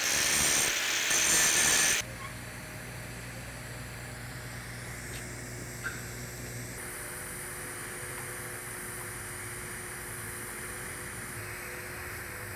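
Angle grinder grinding down the root weld on a carbon steel pipe joint, a loud high grinding that cuts off abruptly about two seconds in. It is followed by a much quieter steady hum from the TIG arc running the 150-amp hot pass.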